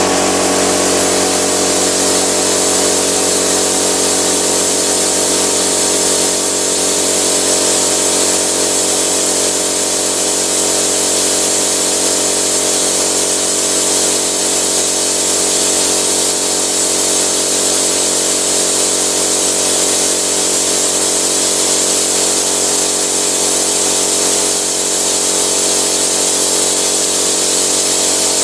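Small electric air compressor switched on and running, a steady loud motor-and-pump hum with a hiss over it, pumping up its tank.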